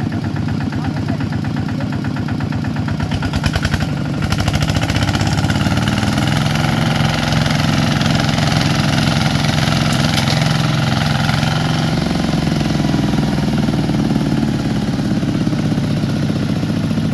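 Single-cylinder diesel engine of a two-wheel walking tractor running steadily with a fast even beat, getting louder about four seconds in.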